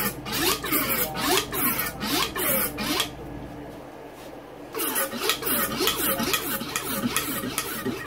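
A Yamaha YZ fork's inner chamber (damping cartridge) is held upside down and stroked by hand to pump out the old fork oil. Each stroke gives a short wet spurt of oil and air, about two a second, with a pause of a second or two midway before the strokes resume.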